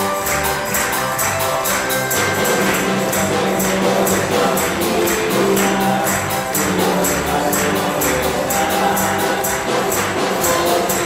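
Live band music: a steady bass line with other instruments above it, driven by a quick, even jingling percussion beat.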